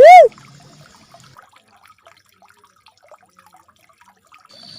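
Uncal merah (cuckoo-dove) lure call: one loud, short note that rises and falls in pitch, right at the start. A faint trickling runs in the background.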